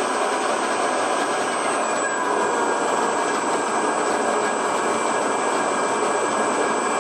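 Grizzly milling machine's spindle and drive running steadily with a faint whine. The spindle slows as the speed-control potentiometer is turned down from about 600 to 390 rpm, and the whine shifts in pitch about two seconds in.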